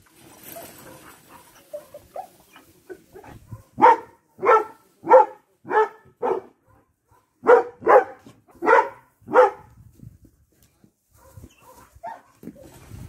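A dog barking: nine short, loud barks in two quick runs, five and then four, with a short pause between.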